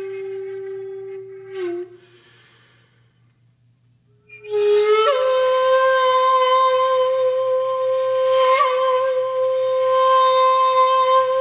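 Outro music of long held, flute-like notes. One note breaks off about two seconds in, there are a couple of seconds of near quiet, and then a higher note slides up and holds steady.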